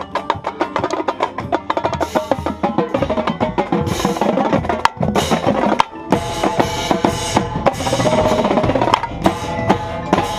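Indoor percussion ensemble mid-show: marching tenor drums (quads) played close up in fast, dense rhythmic runs over the rest of the drumline, with sustained pitched tones underneath from about halfway through.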